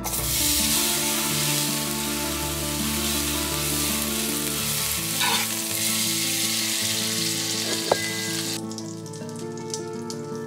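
Food sizzling in a hot frying pan, a steady hiss that cuts off suddenly about eight and a half seconds in, with a single sharp click shortly before.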